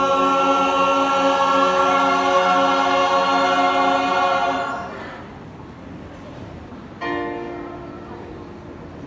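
Voices singing in harmony: a loud chord held for about five seconds, then a second chord entering about seven seconds in and fading away.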